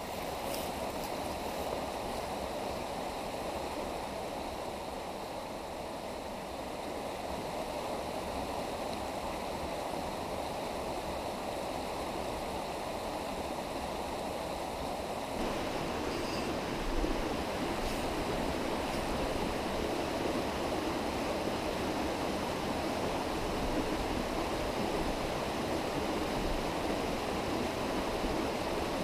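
Mountain stream running over rocks and a small cascade into a pool: a steady rushing of water. About halfway through it becomes a little fuller and deeper.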